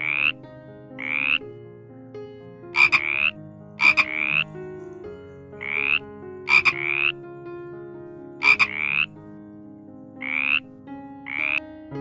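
Frog croaking over and over in short upward-sweeping calls, about one a second and sometimes two in quick succession, some opening with a sharp click.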